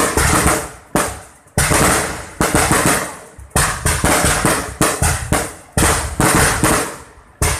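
Aerial fireworks launching and bursting in a rapid series of loud bangs, often several a second, each one trailing off before the next.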